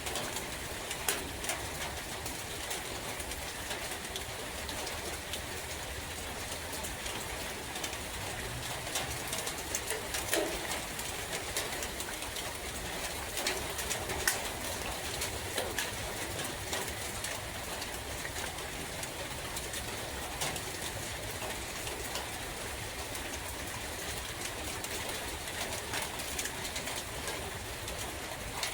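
Steady rain falling, with scattered sharper drips. A dove coos faintly a few times, around a third and a half of the way in.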